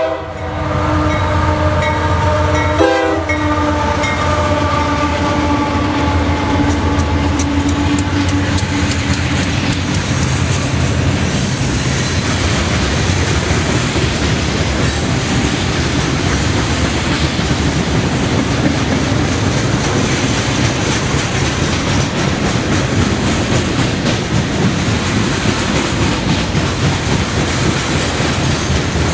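CSX freight train passing close by. The horn sounds briefly in the first few seconds, and the diesel locomotives go by with a deep engine rumble. From about twelve seconds in, the freight cars roll past with steady wheel clatter and rail noise.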